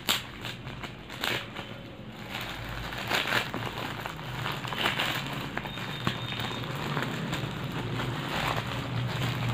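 Plastic courier mailer bag being torn open and crinkled by hand, with a few sharp crackles of the plastic in among steady rustling.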